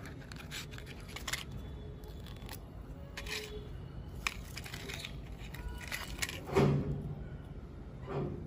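Small clicks and scraping of a matchstick being pushed and worked inside a metal bicycle valve, packing it for the valve-and-feather toy, with one short, louder sound about two-thirds of the way in.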